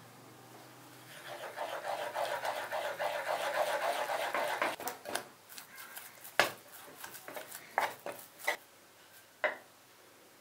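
Wooden spatula beating flour into hot butter and water in a saucepan to make choux paste: a fast, steady rhythmic stirring and scraping. It breaks off into a few separate sharp knocks of the spatula against the pan, the loudest about six seconds in.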